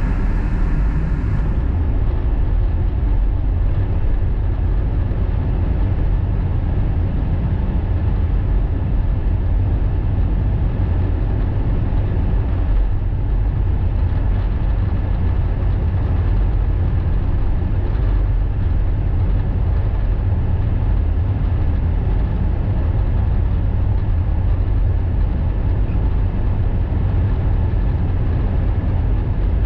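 Steady road noise of a car cruising on an expressway, heard from inside the cabin: an even, deep rumble of tyres and engine that does not change.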